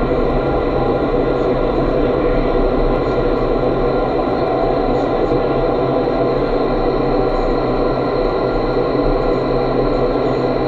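Vertical wind tunnel running: a loud, steady rush of air through the flight chamber, with a steady hum of several fan tones underneath.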